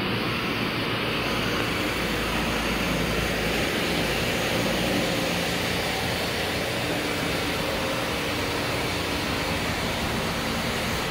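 An escalator running, heard from on board while riding it up: a steady mechanical running noise with a faint low hum from the step drive.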